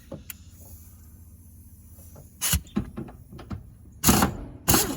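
Hand work on a car seat's mounting hardware: a few clicks and knocks, with a loud scrape about two and a half seconds in and two more loud scrapes near the end.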